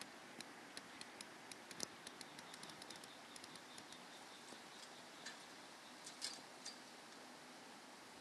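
Near silence with faint, irregular small clicks and ticks, scattered thickly through the first few seconds, with a louder couple about two seconds and six seconds in.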